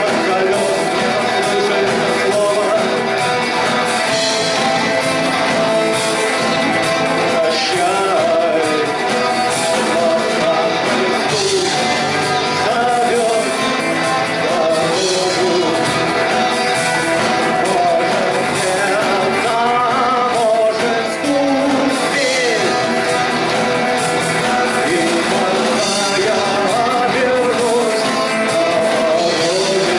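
Rock band playing live, guitars and drums, with a lead line that bends up and down in pitch.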